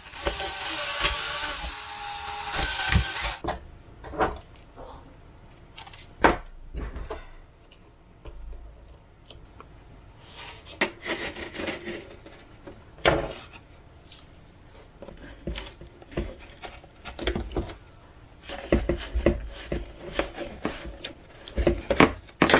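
A cordless drill-driver runs for about three seconds at the start with a steady motor whine. It is followed by scattered knocks, taps and rustles of parts being handled on a wooden bench.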